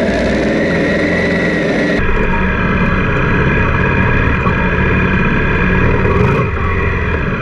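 Honda Africa Twin's parallel-twin engine running at steady, moderate revs while riding a dirt track, heard from a camera mounted on the bike along with wind noise. The sound changes abruptly about two seconds in.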